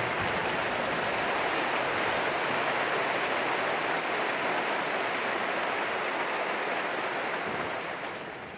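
A concert-hall audience applauding steadily, with the clapping dying away near the end.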